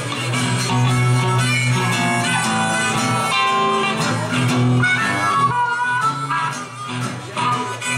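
Blues harmonica, played from a neck rack, carrying the melody in held and bending notes over two acoustic guitars strumming and picking.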